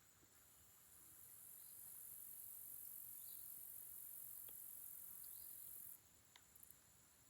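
Faint high-pitched insect buzzing that swells in over about a second, holds steady and stops suddenly about six seconds in, with a few soft chirps and light clicks around it.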